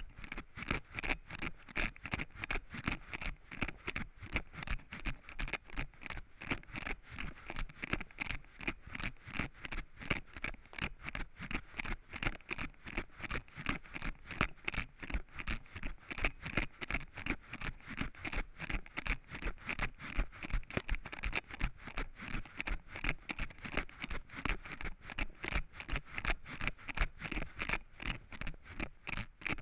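Running footsteps on a gravel path, crunching in an even stride of about three steps a second.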